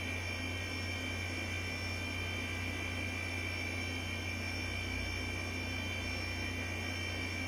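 HP 712/60 workstation running as it reboots: a steady whir and hiss from its hard drive and cooling fan, with a thin high whine over a low hum. The owner doesn't expect this hard drive to last long.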